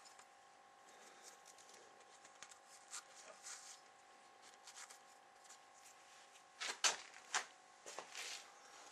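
Faint small scratching and clicking handling noises as modelling clay is picked off a steel rifle action, with a few sharper clicks or knocks about seven seconds in. A faint steady hum runs underneath.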